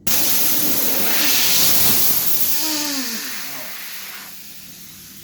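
Pressurised gas blasting out through a refrigerator's condenser pipework in a loud, rushing hiss. It starts abruptly and tails off over the last couple of seconds. This is a flush to check that the condenser is empty and clear before regassing.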